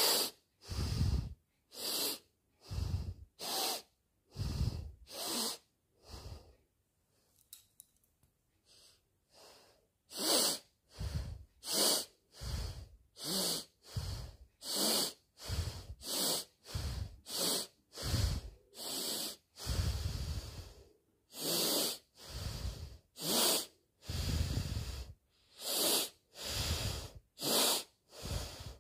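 A woman sniffing hard through her nose again and again, short airy sniffs coming a little over once a second, with a quieter stretch of fainter sniffs a few seconds in.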